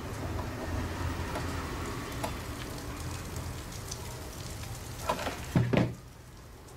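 Soft crackling and rustling as hands handle a hot glue gun and a small ribbon bow, with scattered faint ticks and a couple of short, louder knocks about five seconds in.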